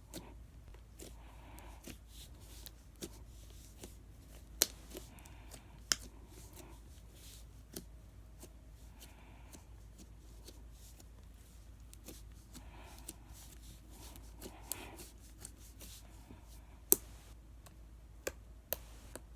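Slime being handled and squished: soft sticky rustling with scattered sharp pops, a few of them louder, about four and a half, six and seventeen seconds in.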